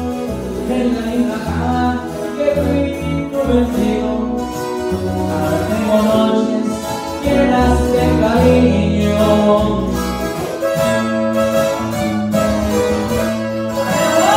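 Acoustic guitars and an electric bass playing a song live, an instrumental passage with a plucked melody line over steady bass notes.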